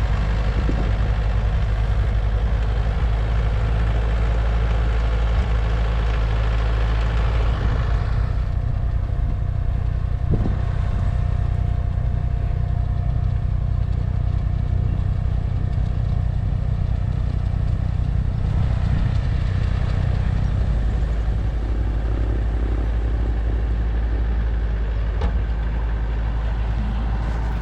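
An engine running steadily with a low, even drone. About eight seconds in, the higher noise over it drops away while the engine keeps running.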